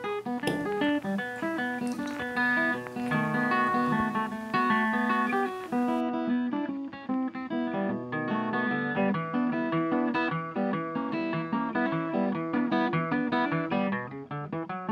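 Background music: a plucked acoustic guitar playing a quick run of short notes.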